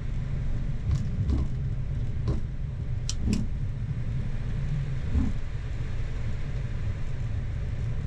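Steady low cockpit rumble of a Boeing 737-8 MAX taxiing, with a few soft thumps and two sharp clicks about three seconds in.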